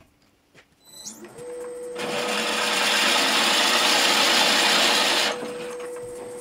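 Oneway wood lathe's motor spinning up about a second in and running with a steady whine. From about two seconds in, a 40 mm drill bit in the tailstock chuck is fed into the spinning wood, a loud hissing cut for about three seconds, after which the lathe runs on alone.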